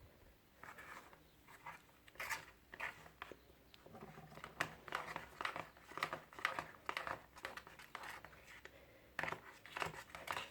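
Thickened glue-and-shaving-foam slime being mixed and worked, giving a run of irregular short squishing and crackling sounds.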